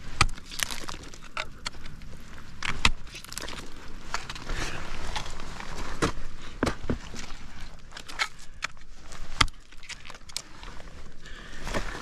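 Ice axes and crampons striking into waterfall ice during a climb: irregular sharp knocks and clicks, some in quick pairs, the loudest near the start and about nine seconds in.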